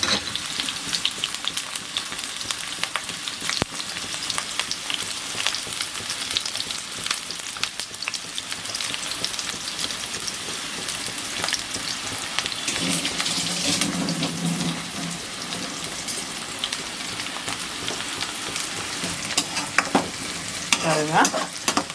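Sliced onions, green chillies and curry leaves frying in hot oil in a kadai: a steady sizzle, with scattered clicks of stirring.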